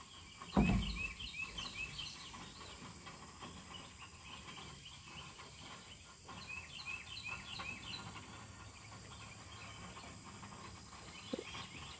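Birds chirping in quick repeated phrases, one run near the start and another about six to eight seconds in, over a faint steady drone of insects. A low thump about half a second in is the loudest sound.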